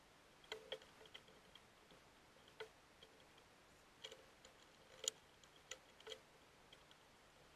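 Faint, scattered light clicks and taps, about eight in all at uneven intervals, from a Mishimoto X-Line aluminum radiator being handled and set into place in the engine bay.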